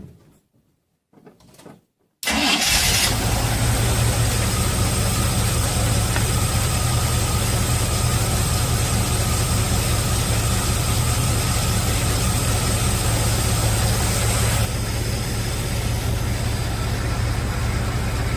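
Chevy C20 pickup engine cranked briefly and catching quickly about two seconds in, then running steadily at idle. The level steps down slightly about fifteen seconds in. The starter cuts out once the engine fires, no longer running on after the remote solenoid fix.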